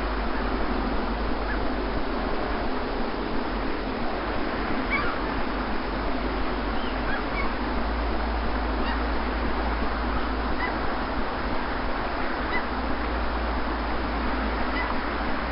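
Sea surf washing on a beach in an even, steady rush with a low rumble, and short bird calls now and then.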